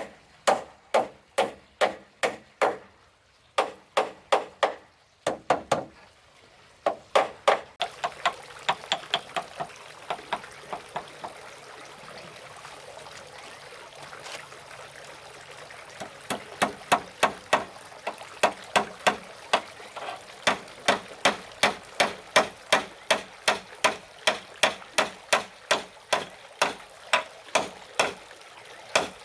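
Repeated blows of a hand tool striking wood, about two to three a second, pausing briefly a few times. A steady background hiss joins about eight seconds in.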